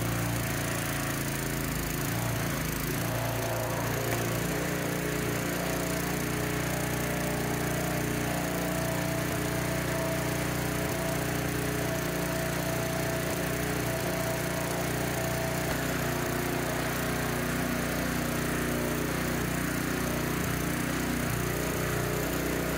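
Small lawn-mower-style gasoline engine on a walk-behind aircraft tow tug, running steadily at an even speed.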